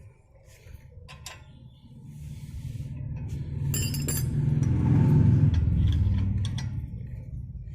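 A low vehicle rumble that swells to a peak about five seconds in and then fades, with a brief metallic clinking rattle just before the peak.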